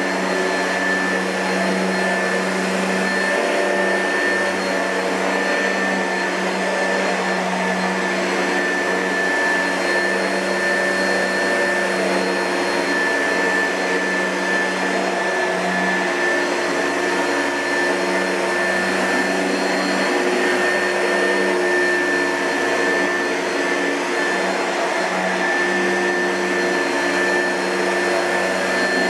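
2005 Oreck XL2 upright vacuum cleaner running steadily: a rush of air with a constant high whine from the motor.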